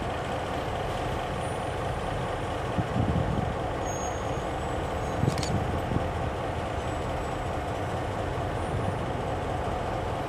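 Diesel switcher locomotives, an EMD SW14 and SW1200, idling at a standstill with a steady engine rumble.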